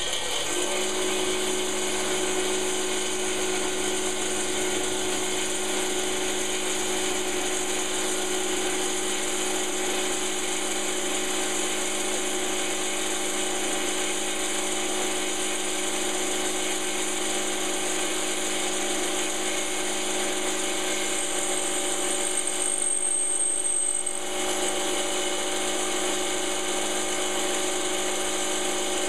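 A power drill runs steadily with a carbide-tipped bit boring into a hardened steel file: a steady motor hum under a continuous grinding, chattering scrape. The sound dips briefly about three-quarters of the way through, then carries on.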